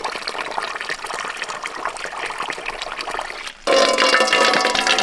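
A stream of water pouring from a spout into an aluminium bowl of rice being rinsed, splashing in the water. About three and a half seconds in, it changes to a louder stream falling into a nearly empty aluminium pot, with ringing tones from the metal.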